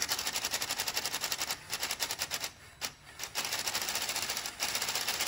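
Motorized LEGO Technic Bugatti Chiron's W16 piston engine running: the plastic pistons and gears clatter in a rapid, even rattle. The rattle almost stops about two and a half seconds in, then picks up again.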